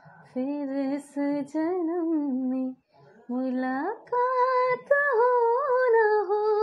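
A woman singing a wordless melody unaccompanied: a few short held notes, then a slide up about four seconds in to a higher note held with a wavering pitch.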